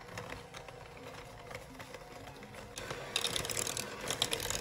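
KitchenAid electric hand mixer running, its beaters working chunks of butter and sugar in a bowl: a steady motor whine with rattling and scraping from the beaters, getting louder about three seconds in.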